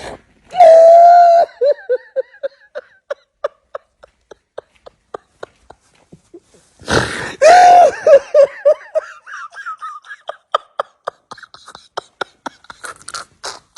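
A person laughing in two long bouts, each opening with a loud cry and trailing off into a rapid run of short "ha" pulses, about four or five a second; the second bout starts about seven seconds in.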